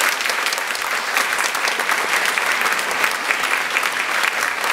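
Audience applauding steadily, a dense patter of many hands clapping to welcome a speaker to the stage.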